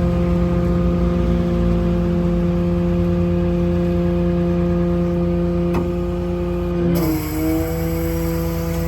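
A 6.7 Cummins diesel runs at raised idle, driving the PTO hydraulic pump with a steady whine while the hydraulic outriggers extend. A click comes just before 6 seconds in, and about a second later the pitch dips and settles slightly lower as the load on the pump changes.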